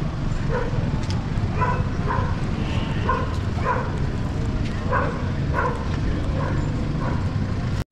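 A dog barking repeatedly, roughly two barks a second, over a steady low street rumble.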